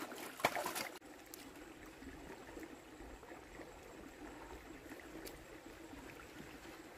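A few sharp knocks and clatters of plastic bowls being handled, stopping suddenly about a second in. After that comes a faint, steady trickle of water.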